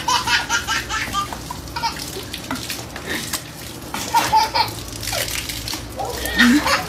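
A toddler laughing and squealing in bursts, over the hiss and splash of water from a garden hose.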